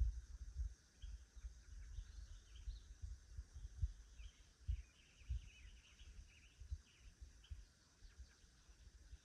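Faint outdoor ambience: small birds chirping in short, scattered calls, busiest in the middle, over irregular low rumbles and thumps that die down near the end.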